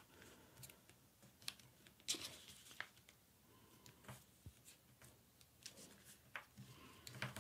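Faint, sparse rustling and crinkling of a sheet of paper being folded and creased by hand, a handful of short crackles spread through an otherwise near-silent stretch.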